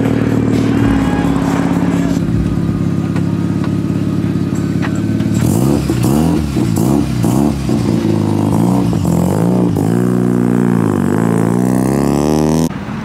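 Mazda RX-7's engine idling steadily, then revved up and down in repeated blips from about halfway through as the car pulls away.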